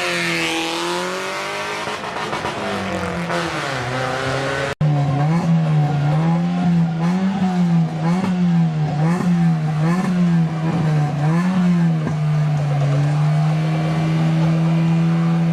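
Race car engine revved up and down in repeated blips of the throttle, then held at steady high revs near the end. About five seconds in, the sound cuts out abruptly for a moment.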